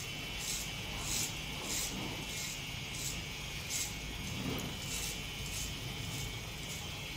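Electric hair clipper running and cutting a boy's hair, with short rasping passes through the hair roughly every half second.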